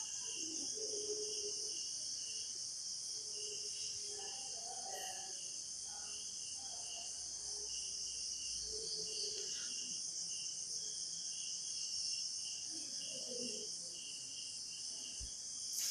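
Night insects chirping steadily, a high continuous chorus with a pulsing chirp repeating a couple of times a second.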